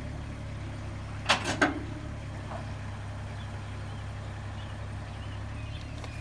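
Truck engine idling steadily with a low hum. About a second and a half in, three sharp knocks come in quick succession.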